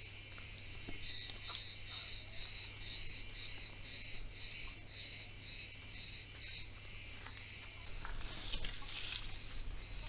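Insects chirping in a high, pulsing rhythm of about two chirps a second, over a low steady hum, with a few light knocks near the end.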